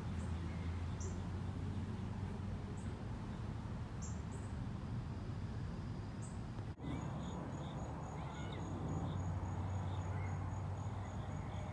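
Outdoor ambience of a steady low hum with a few short, high bird chirps. After a brief break about two-thirds through, an insect's high, evenly pulsed call runs on with a few faint chirps.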